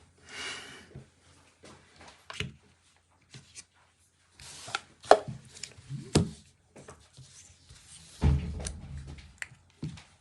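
Handling noise from a phone box and its packaging: a brief rustle at the start, then scattered sharp knocks and taps, and a heavier thud late on.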